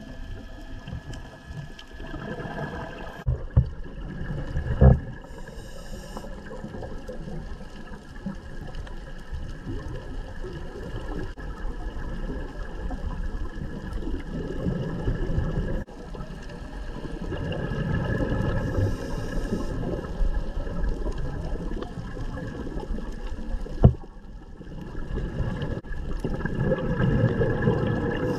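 Muffled underwater sound through a camera's waterproof housing: a scuba diver's breathing, with a short hiss of inhalation and surges of rumbling exhaled bubbles, and a few sharp knocks.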